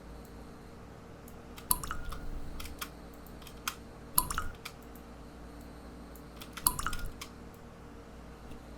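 Water-drop sound effect: three drips about two and a half seconds apart, each a sharp plink with a short rising tone and a few smaller drops trailing after it.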